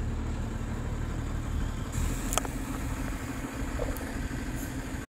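Steady low mechanical rumble with one sharp click about two and a half seconds in; it cuts off abruptly at the very end.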